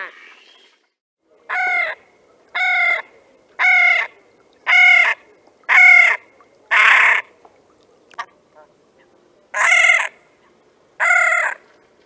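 Great crested grebe giving a series of loud, harsh calls, about one a second: six in a row, then after a pause of about two seconds two more.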